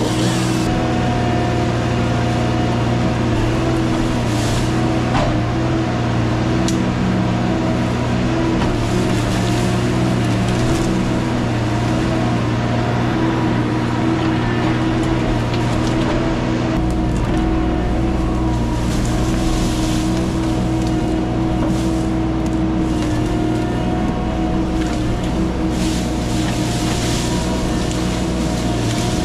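A motor engine running steadily at one speed, with a couple of faint clicks about four to five seconds in.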